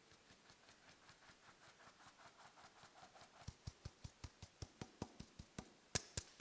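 Flour-filled fine-mesh sieve tapped by hand in a steady rhythm, about five taps a second, sifting flour into a bowl. The taps are soft at first and firmer from about halfway, with two louder knocks near the end.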